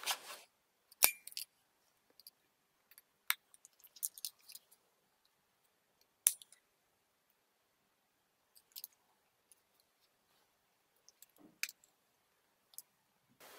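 A battery sliding into a Panasonic Lumix GH5's grip, with a sharp click about a second in. Then scattered small clicks and taps as the camera body, its controls and its fold-out screen are handled.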